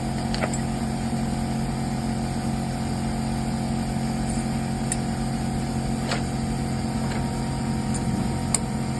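A steady machine hum throughout, with a few faint, short metallic clicks of brake pads and clips being handled and fitted into the caliper.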